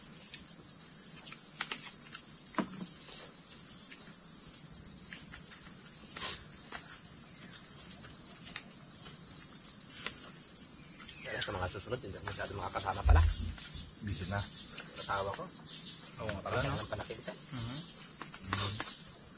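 Loud, steady insect chorus: a continuous high, rapidly pulsing buzz.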